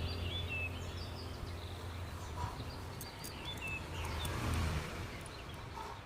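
Birds chirping intermittently in the background over a low steady hum that fades, with a few faint sharp clicks about three seconds in.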